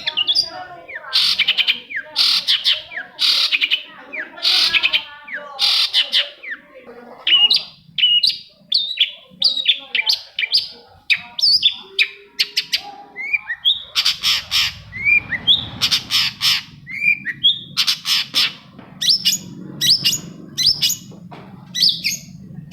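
Long-tailed shrike (cendet) singing: a rapid, continuous run of harsh chattering calls and sharp, short chirps, played as a lure recording to set other shrikes singing.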